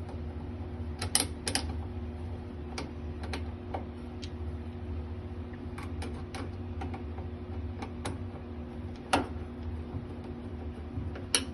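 Scattered sharp clicks and taps of a screw being driven with a screwdriver, fastening a new door switch into a clothes dryer, over a steady low hum.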